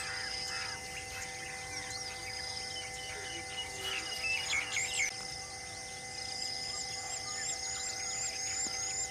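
Wild birds chirping and calling in forest, ending in a quick run of repeated chirps, over a steady drone of held tones.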